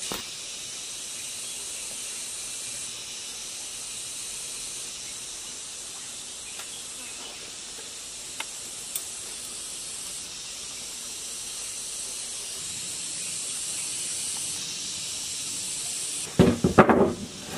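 Steady high hiss with a few faint metallic ticks as a new oil ring is worked onto a diesel engine piston. About a second before the end comes a brief, louder clatter of the piston being handled on a wooden bench.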